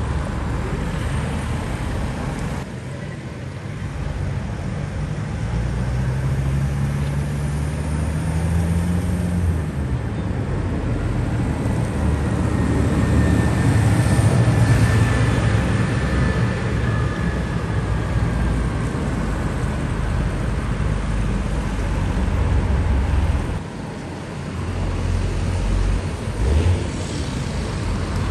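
Vintage tractors driving past on a road, their engines running. The sound swells and fades as they come and go, and one engine's pitch rises a few seconds in as it picks up speed.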